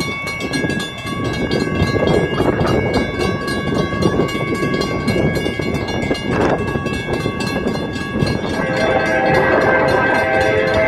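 Railroad crossing warning bell ringing steadily with the crossing activated for an approaching train. About two-thirds of the way through, the train's horn starts sounding, a strong held chord that becomes the loudest sound.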